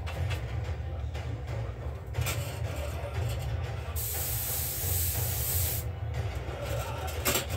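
A spray hissing for about two seconds midway, with shorter bursts of hiss before it and near the end, over a steady low hum.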